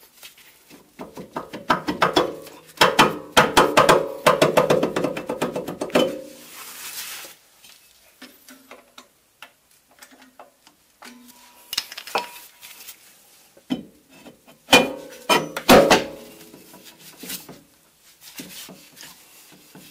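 Steel brake drum of a rear drum brake being slid off and back onto the wheel hub: clanking and scraping metal with a ringing tone, in two spells. In between, quieter scattered clicks while the brake shoes are adjusted a little tighter.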